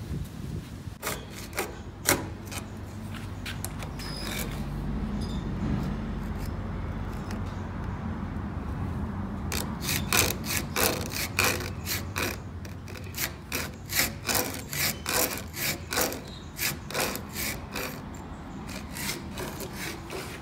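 Steel file rasping across the cutters of a Husqvarna chainsaw chain clamped in a vise, sharpening it in quick even strokes about twice a second, most steadily in the second half.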